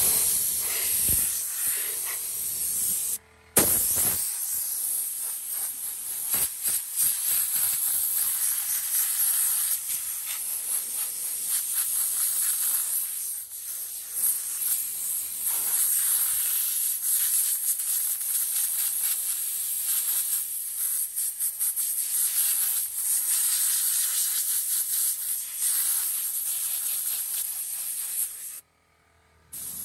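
Compressed air hissing steadily from an air-hose blow gun as it blows dog hair out of vehicle seats and upholstery; it cuts out briefly about three seconds in and stops near the end.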